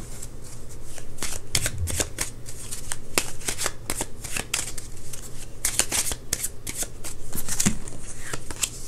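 Tarot cards being shuffled by hand: a dense, irregular run of quick card snaps and flicks.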